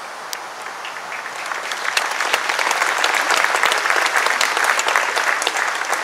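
Audience applauding. Many hands clap, building up over the first couple of seconds and tapering off near the end.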